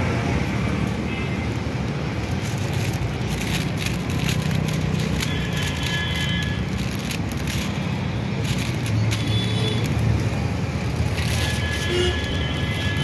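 Steady road-traffic rumble from a busy street, with faint music-like tones coming and going over it.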